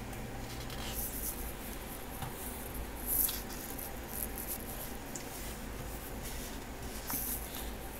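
Photobook pages being turned and handled by hand: paper swishes and rustles about a second in, around three seconds, and again near the end.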